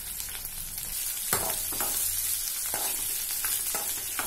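Shallots, dried red chillies and chana dal sizzling steadily in hot oil in a kadai. From about a second in, a metal slotted spoon stirs them, scraping and clattering against the pan several times.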